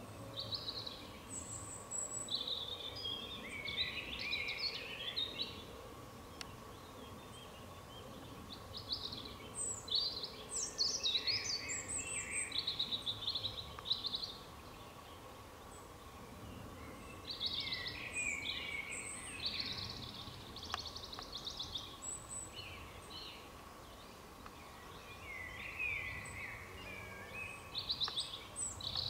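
Woodland songbirds singing in four bouts of quick, varied warbling phrases and trills, with short pauses between bouts. A faint steady tone runs underneath.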